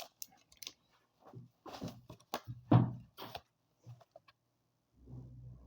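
Soft thunks and rustles from handling a Pokémon booster pack and its cards on a table, as a series of separate short knocks with the loudest near the middle.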